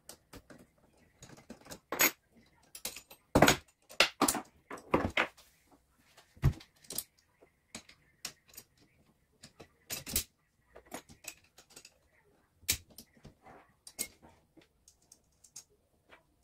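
Scattered metallic clicks, clinks and knocks of a steel paintless-dent-repair bridge being reconfigured by hand: its wing nut and nut are undone and its handle refitted in the lever position. The busiest clatter comes a few seconds in.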